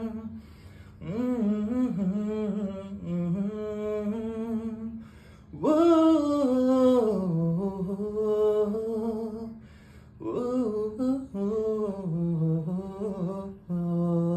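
A man singing unaccompanied, in wordless hummed and open-voiced phrases of one to two seconds with short breaths between them. The loudest is a high held note about six seconds in, which slides back down.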